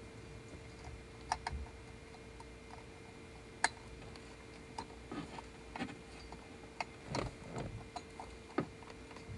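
Scattered sharp clicks and light knocks of plastic wiring harness connectors being handled and pushed into the back of a gauge, over a faint steady hum.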